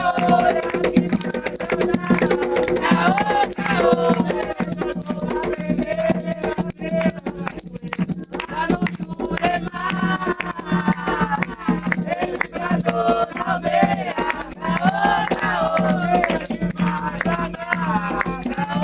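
Voices singing an Umbanda ritual chant, with rattles shaken continuously in rhythm.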